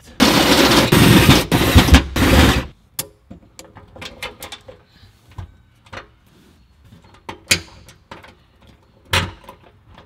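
A power tool runs in about four short, loud bursts, then stops, working on the compressor's mounting holes in the car's trunk floor. Scattered clicks and knocks of metal parts being handled follow.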